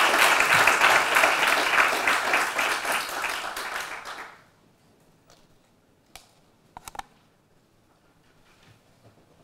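Audience applauding, a dense patter of many hands that dies away about four seconds in. A few small clicks and knocks follow.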